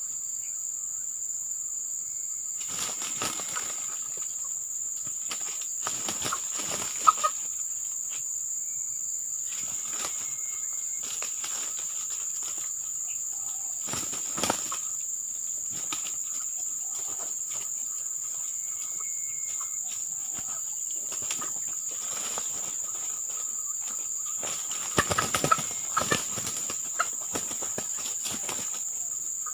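Two red junglefowl roosters fighting, their wings flapping and beating in irregular flurries, heaviest about seven seconds in and again near the end. Under them a steady high insect drone.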